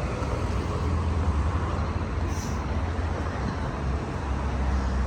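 Steady low rumble of road traffic, with a brief faint hiss about two and a half seconds in.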